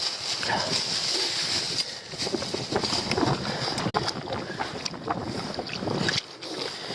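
Wind buffeting the microphone over shallow seawater sloshing and splashing among shore rocks, with irregular small splashes throughout.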